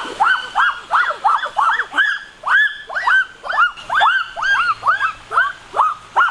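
An animal yelping over and over, about three short rising-and-falling yelps a second without a break.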